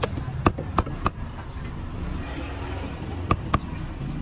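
Cleaver chopping grilled pork on a wooden chopping board: four sharp knocks in quick succession in the first second, a pause, then two more knocks a little past three seconds, over a steady low background rumble.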